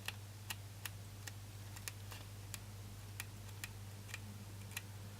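Faint, unevenly spaced paper ticks, about two to three a second, as the pages of a hand-stitched A6 notebook are flicked through one by one to count them. A steady low hum lies underneath.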